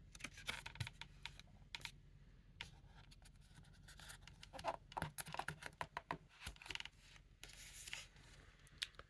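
Faint irregular clicks and scratchy rustles of paper, a book's pages and flaps being handled, with a few louder clusters about halfway through and near the end.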